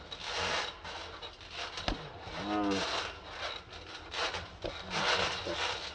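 Trampoline being bounced on: a rasping, rubbing noise from the mat and springs swells with each bounce, about once a second. There is one brief pitched creak about two and a half seconds in.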